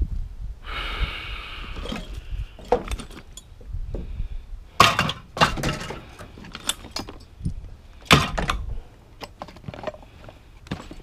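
Small metal and plastic odds and ends clattering and clinking as a gloved hand rummages through them in a cardboard box, with irregular sharp knocks, the loudest about five and eight seconds in, and a brief rustle about a second in.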